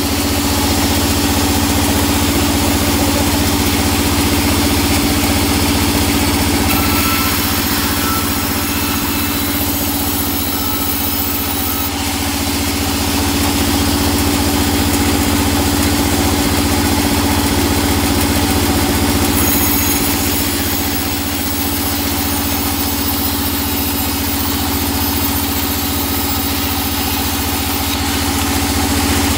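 Large band sawmill running with a steady motor hum, its blade hissing through hard teak planks as they are resawn, the cutting noise shifting a little as each board is fed through and repositioned. The saw is working hard in the very hard teak, with a blade the uploader calls blunt.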